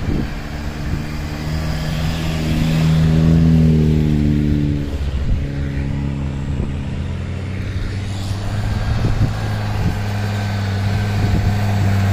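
Jeep Wrangler engine pulling through deep snow. Its pitch and level climb to a peak about three seconds in, then fall away as it passes. A UAZ-469's engine then runs steadily, growing louder as it approaches near the end.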